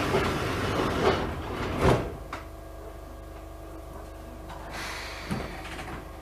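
Passenger sliding doors of an Enshu Railway 1000-series electric train working at a station stop: a rush of air for about two seconds ending in a thump, then a click, over the steady hum of the stopped train's equipment.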